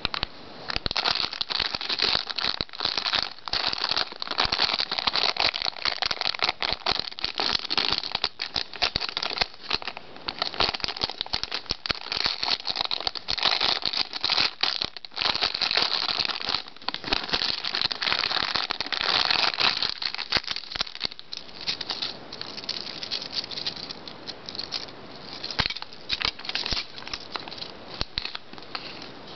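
A clear plastic bag crinkling and rustling as hands open it and pull out a metal bib necklace, with its chain and links clinking. The crinkling thins out about two-thirds of the way through, leaving lighter scattered clicks.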